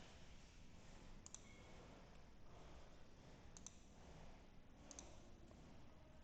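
Near silence with faint computer-mouse clicks: three quick double clicks spread a second or two apart.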